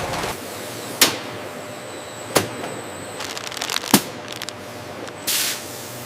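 Factory machinery running with a steady hum and a high whine, punctuated by three sharp clacks, a flurry of small clicks, and a short hiss of air near the end.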